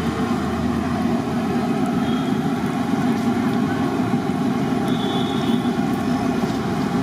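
Batter-coated snacks deep-frying in a large kadai of hot oil over a gas burner: a steady roar with sizzling.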